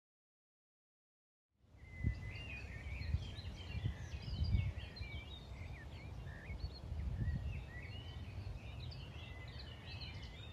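Songbirds chirping and warbling over a low, uneven rumble of wind on the microphone, starting after about a second and a half of silence.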